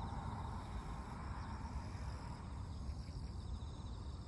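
Insects chirping in a steady pulsing trill over a low outdoor rumble.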